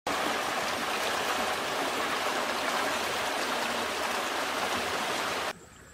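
A small waterfall: water spilling over a rock ledge and churning into a shallow pool, a steady rushing splash that cuts off suddenly near the end.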